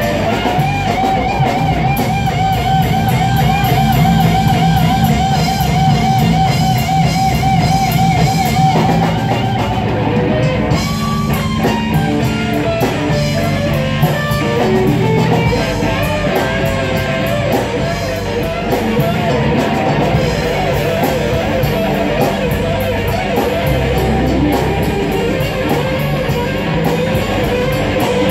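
Live rock band jamming on electric guitar over a drum kit. A lead line holds one long note with vibrato for about the first nine seconds, then breaks into busier runs.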